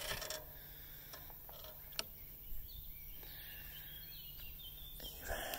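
Quiet outdoor background noise with a faint low hum and a single sharp click about two seconds in.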